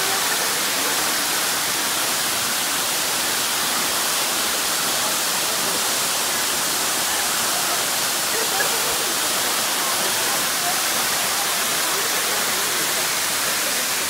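Two waterfalls pouring down a rock face: a steady, even rush of falling water.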